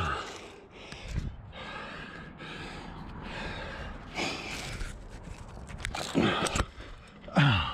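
A rock climber breathing hard from exertion, quick breaths in and out about twice a second, with a few short grunts that fall in pitch, the loudest near the end.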